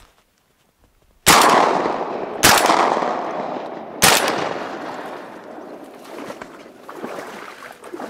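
Three shotgun shots fired at flying ducks, the first about a second in and the next two roughly one and a half seconds apart, each sharp report followed by a long fading echo. The first two shots miss; the third hits.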